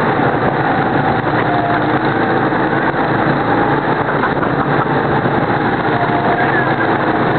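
Go-kart engines running steadily at speed on the track, a loud continuous drone whose pitch wavers slightly up and down as the karts accelerate and slow through the corners.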